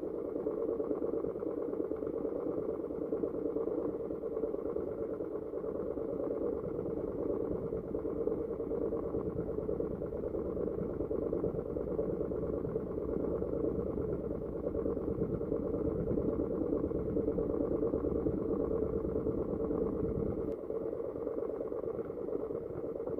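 Engine of a motorized outrigger fishing boat running steadily while underway, heard muffled through a phone microphone that is covered to keep it dry.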